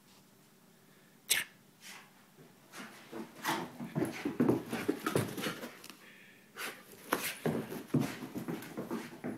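A dog scuffling and scrabbling on carpet as it spins after its tail and tussles with a piece of fabric, in short irregular bursts with panting. A single sharp click comes about a second in.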